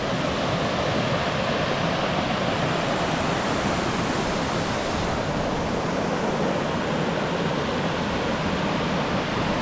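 Steady rush of water from small waterfalls tumbling over rocks in a creek.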